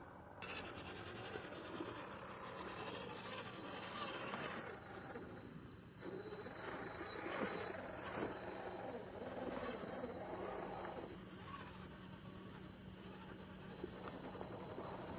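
A 1:12 scale RC 4x4 truck's electric drivetrain giving a steady high-pitched whine as it crawls over rocks, with the scraping and crunching of its tyres on stone. The whine starts about half a second in.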